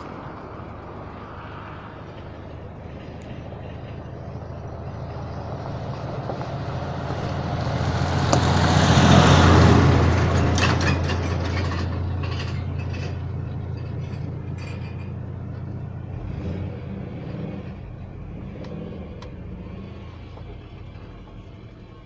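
Car driving slowly on a rough mountain road, its engine running steadily with road noise. About nine seconds in, another vehicle passes close by, swelling up and fading over a few seconds.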